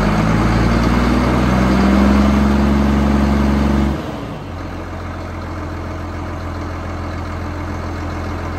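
1998 John Deere 7810 tractor's six-cylinder diesel engine revving up and held at raised speed, then dropped back to a steady idle about four seconds in.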